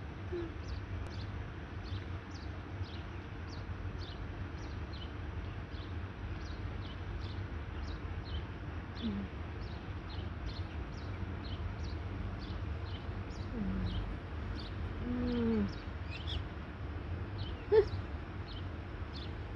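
A small bird chirping over and over, a short high note roughly every half second, over a steady low rumble of background noise. A single sharp knock about eighteen seconds in is the loudest sound.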